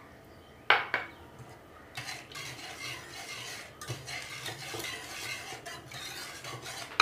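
A wire whisk beating milk and egg yolk in an aluminium saucepan: a continuous quick swishing with small scrapes and ticks of the wires against the pan, starting about two seconds in. A single short clink comes just under a second in.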